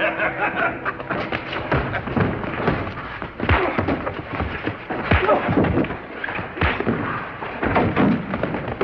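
Staged fistfight: an irregular run of punch and body-fall thuds and knocks, with men's voices shouting and grunting.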